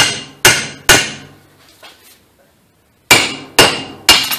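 Claw hammer striking a Mazda 626 flywheel to knock out its steel dowel pins. There are six sharp metallic blows, each with a short ring: three about half a second apart, a pause of about two seconds, then three more.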